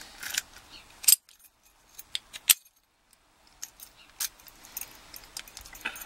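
An American Lock 701 padlock and its brass key being handled: a scatter of sharp metallic clicks and light key jingling, the loudest clicks about a second in and again about two and a half seconds in.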